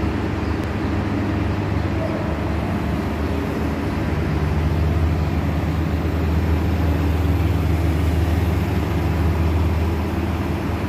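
City transit bus engine running with a steady low drone as the bus goes by; the drone grows louder about four seconds in.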